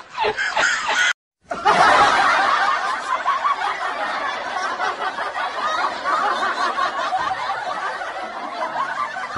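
Laughter from several voices, a dense, continuous giggling that begins after a brief dropout about a second in.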